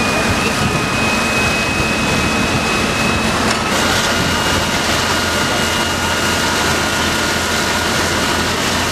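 Fire apparatus engines and pumps running steadily under water jets from hose nozzles, with a thin steady whine whose pitch changes about three and a half seconds in.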